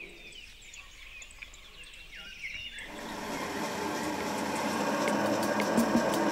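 Small birds chirping for the first few seconds. About three seconds in, a wet metallographic grinding machine starts running as a steel weld test specimen is held against its spinning, water-fed abrasive disc, a steady grinding noise with scattered clicks that grows louder.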